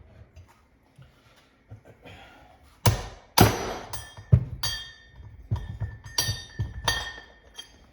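Hammer striking a steel bushing driver, knocking an old bushing out of an automatic transmission's oil pump: about ten sharp metal blows with a ringing tone, starting about three seconds in after a few faint taps.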